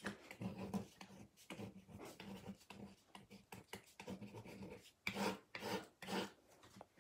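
Faint scratching of a golf-iron-shaped novelty pen writing on grey card in many short strokes. Near the end come three louder, longer strokes as lines are drawn under the word.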